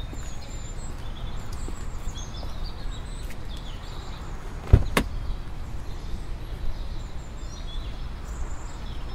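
Steady low outdoor rumble with faint bird chirps, and a car door giving two sharp knocks in quick succession about halfway through.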